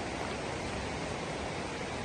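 Steady rushing of a river in a mountain valley, an even hiss with no breaks or distinct events.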